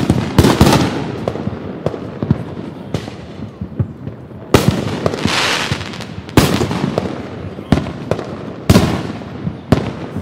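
Fireworks going off: four big bangs about two seconds apart, each followed by a hissing crackle, with many smaller pops and bangs in between.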